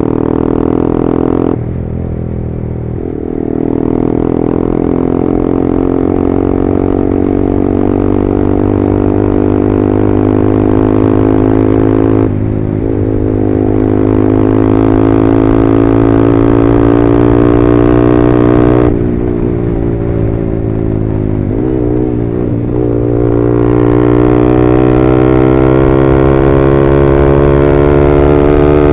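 Yamaha R15M's single-cylinder engine through an SC Project full-system exhaust, riding under load, its pitch climbing slowly and then dropping suddenly three times, about 2, 12 and 19 seconds in, as the throttle is eased or a gear changes.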